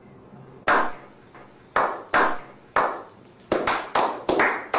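A small group slowly clapping: single claps about a second apart at first, then coming faster and overlapping from about three and a half seconds in, as a slow clap builds. Each clap has a short echo.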